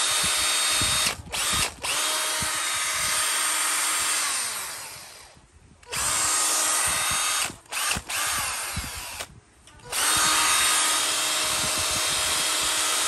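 Panasonic EZ7960 18 V cordless hammer drill running free with no load, its motor whine steady at full trigger. The trigger is released and squeezed again several times, giving short stops and restarts, and once the motor winds down with falling pitch about four seconds in before starting up again.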